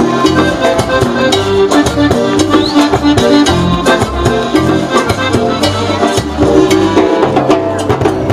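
Live cumbia band playing an instrumental stretch: bass and melody notes over percussion keeping a steady beat.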